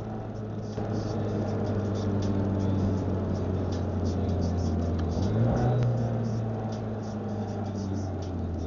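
Car engine and drivetrain droning steadily, the pitch stepping up slightly about five seconds in, with faint irregular ticking over it. The owner suspects it as an abnormal transmission noise.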